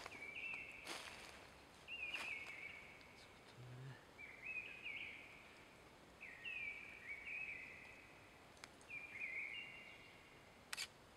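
A songbird singing short, stepped phrases about every two seconds, with a few faint clicks of handling in between.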